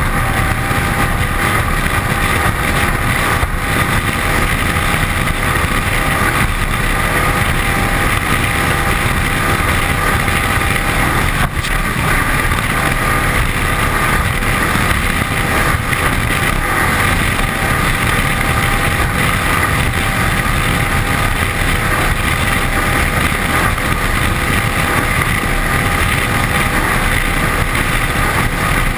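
Loud, steady run of a 1981 Cigarette 27 Squadron powerboat at speed, its 540 cubic-inch big-block V8 driving through a Konrad sterndrive. Bow spray is rushing along the hull close to the camera. There is one brief dip in the noise about halfway through.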